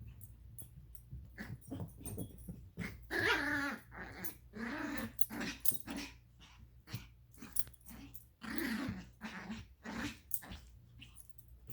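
Dogs growling at each other in play, in several rough bouts, with short sharp clicks between.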